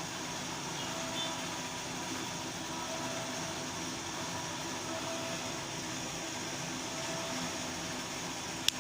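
Steady background noise, a constant hum and hiss, with one sharp click near the end.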